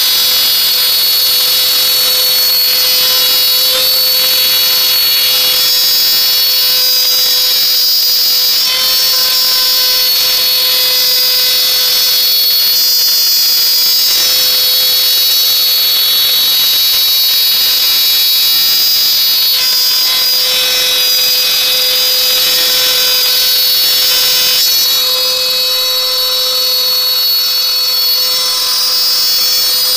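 Ingco trim router running at high speed as a CNC spindle, milling through 4 mm Alucobond aluminium composite panel: a loud, steady, high-pitched whine.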